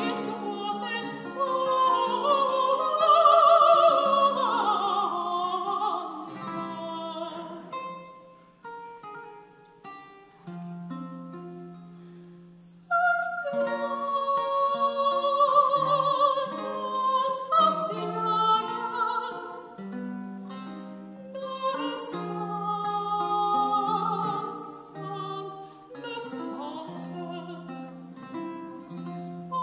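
Soprano singing with vibrato, accompanied by plucked chords on a five-course Baroque guitar. About eight seconds in the voice stops and the guitar plays alone, more quietly, for about five seconds before the singing resumes.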